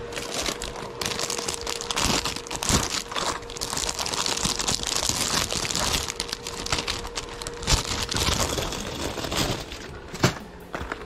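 Plastic lure packaging crinkling and crackling as packaged minnow lures are handled and hung on display hooks, with sharp clicks and taps among it. A faint steady hum sits underneath until about two-thirds through.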